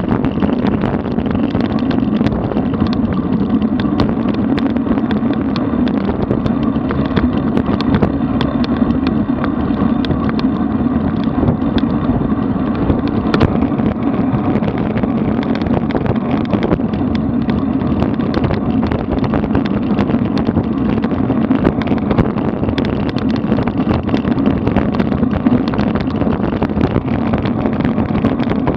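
Wind rushing over the microphone of a bike-mounted camera at about 47 km/h, mixed with road-bike tyre noise on the asphalt: a steady, loud rumbling hiss with a few small clicks.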